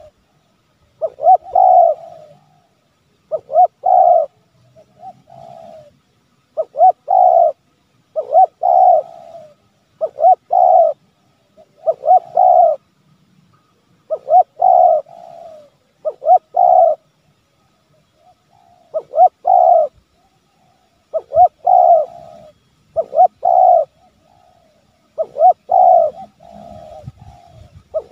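Spotted dove (tekukur) cooing over and over in short phrases of two or three coos, a phrase about every two seconds, with a longer pause about two-thirds of the way through. This is the spotted dove's insistent calling and 'pressing' (menekan) song, the kind that provokes wild doves and draws them close.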